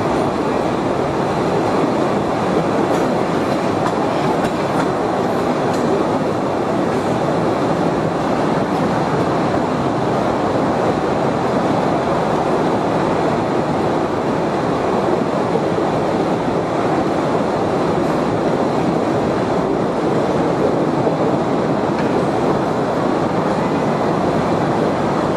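Cave tourist train running along its narrow-gauge track, heard from aboard an open carriage: a steady, unbroken noise of wheels on rail.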